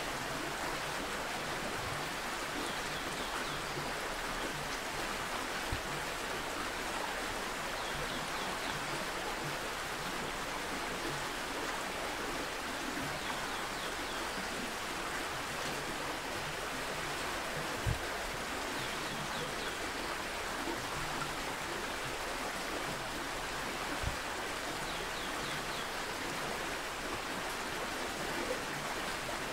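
Steady rush of flowing stream water, with a few brief faint knocks.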